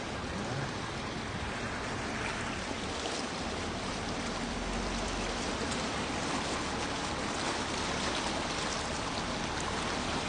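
Steady rush of flowing floodwater, an even watery hiss.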